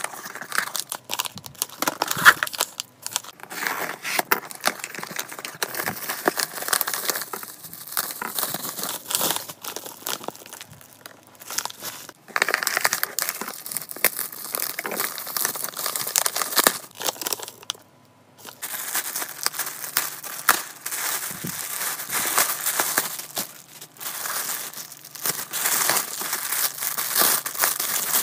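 Plastic packaging crinkling and rustling as it is handled and opened: a glossy treat bag and the plastic wrapper around a towel. It breaks off briefly about eighteen seconds in.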